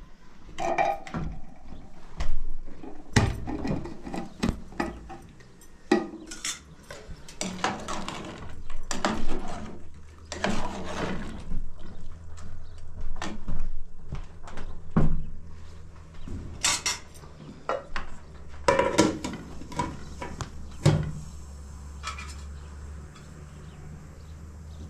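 Metal spoon and utensils clinking, knocking and scraping against cooking pots, a tin can and a metal tray in an irregular series of short knocks, over a steady low hum.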